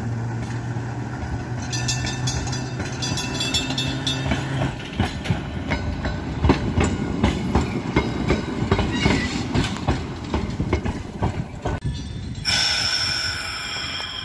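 San Jose Railroads #124 electric streetcar running on street track: a steady low hum at first, then its wheels clattering over the rails with many sharp clicks. Near the end comes a high, steady squeal of the wheels on the rail.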